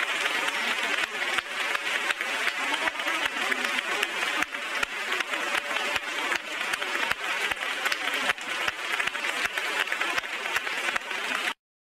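A large audience applauding in a dense, steady ovation; it cuts off suddenly near the end.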